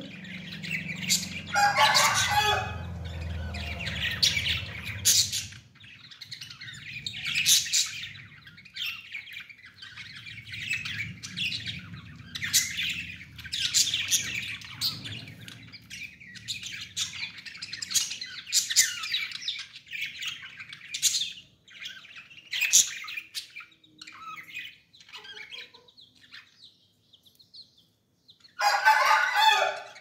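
Caged budgerigars chirping and chattering, a steady run of short high chirps, with two louder, harsher bursts of calling about two seconds in and near the end.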